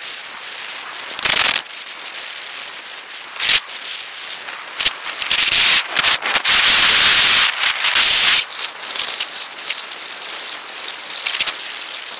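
Wind and ride noise rubbing on a moving camera's microphone: a steady rough hiss, with a brief loud surge about a second in, another near three and a half seconds, a long loud stretch through the middle, and a few shorter surges near the end.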